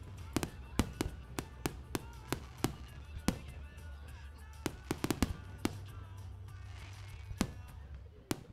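Aerial fireworks shells bursting in a run of sharp bangs, about one or two a second, with a quicker cluster about five seconds in and a short lull after it, over music.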